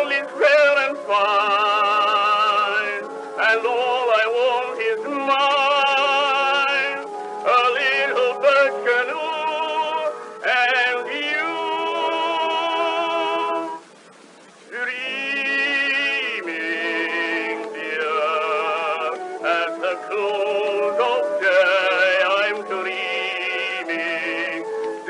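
A male tenor sings a sentimental 1918 ballad with heavy vibrato, in phrases with a short pause about midway. The sound is thin and narrow, typical of an early acoustic (horn) Edison recording.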